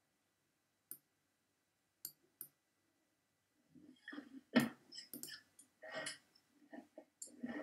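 Scattered clicks and taps heard over a video call: three faint single clicks in the first few seconds, then a busier run of short taps and knocks from about halfway on.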